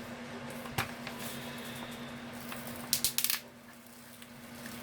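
Crinkling and clicking of craft materials being handled: one sharp click about a second in and a short burst of crinkles around three seconds in, over a steady low hum.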